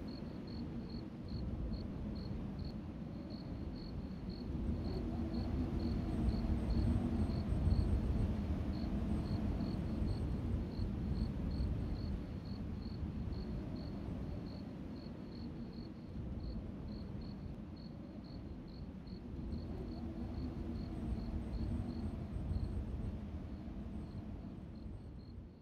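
Cricket chirping steadily, about two chirps a second, over a low rumbling hush that swells and eases twice; the whole bed fades out at the end.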